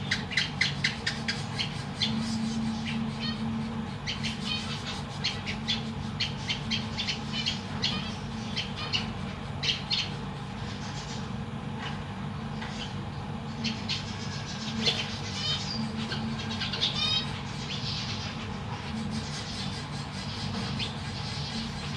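Zebra finches calling in quick series of short, high chirps, busiest in the first half, over a steady low hum.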